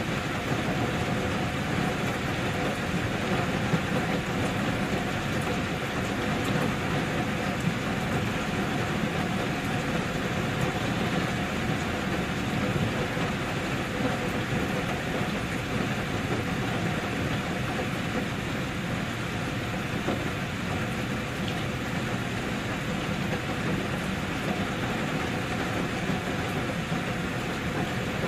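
Steady rain, an unbroken even hiss, with a faint steady hum beneath it.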